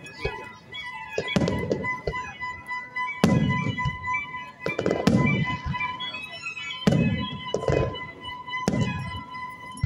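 Aerial fireworks shells bursting: a string of sharp bangs, several followed by deeper booms, with music playing under them.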